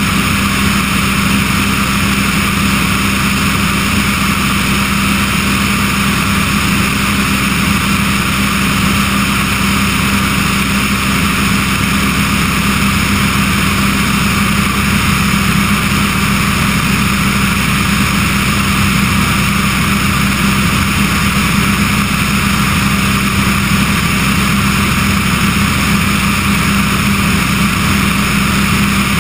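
Remos G-3/600 light sport aircraft's Rotax 912 engine and propeller droning steadily in cruise flight, with airflow rushing over the microphone outside the cabin.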